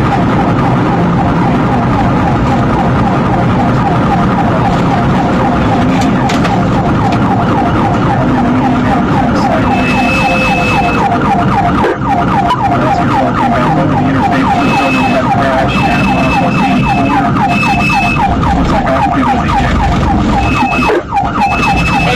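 Police car siren sounding a rapid rising-and-falling yelp, over the road and engine noise of the patrol car driving at speed.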